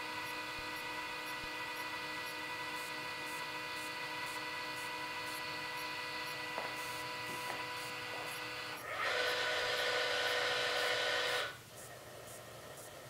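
Meade LX200GPS telescope's drive motors slewing the tube, a steady whine of several tones. About nine seconds in it switches to a louder whine for two or three seconds, then stops suddenly. The mount is running its automatic alignment, searching for its home position.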